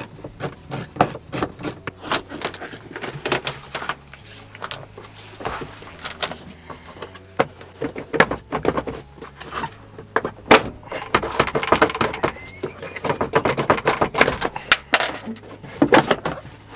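Scattered clicks, knocks and rattles of a car's rear side trim panel being worked off and fitted into place by hand, with plastic clips and seatbelt hardware clattering.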